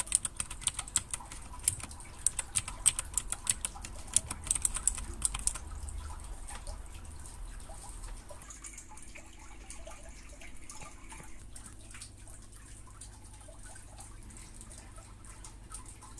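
Typing on a Royal Kludge RK61 mechanical keyboard: a fast run of key clicks for about five seconds, then lighter, sparser keystrokes.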